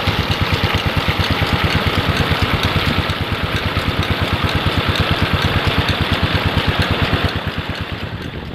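Tube-well diesel engine running steadily with a fast, even thumping beat, about eight beats a second, growing a little quieter near the end.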